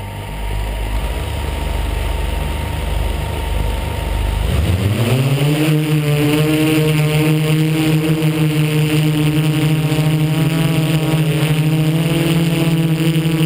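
MikroKopter multirotor's electric motors and propellers spinning with a low rumble, then about four and a half seconds in winding up in pitch to a loud, steady hum as the craft is throttled up.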